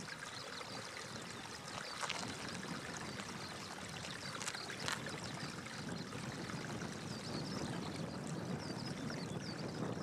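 Steady rushing outdoor background noise, with faint high chirping bird calls mostly in the second half and two brief clicks, about 2 and 5 seconds in.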